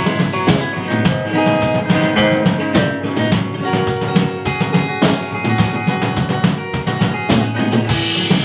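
A live band playing an instrumental passage between sung lines: a drum kit with bass drum and snare keeps a steady beat over sustained bass and chords.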